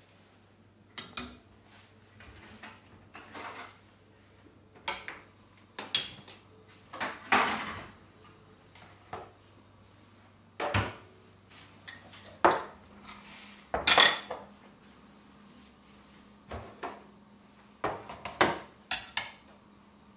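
Kitchen utensils, bowls and pans being handled and set down on a counter and stove: irregular clinks and knocks, loudest about 14 seconds in.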